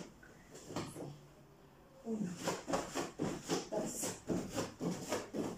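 Bare feet landing on a foam exercise mat in quick repeated jumps, about three to four thuds a second, starting about two seconds in after a quieter start.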